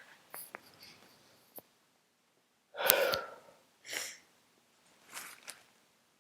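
A person with a heavy head cold sneezing loudly once, about three seconds in, with a voiced breath and small clicks before it and two shorter breathy exhales after it.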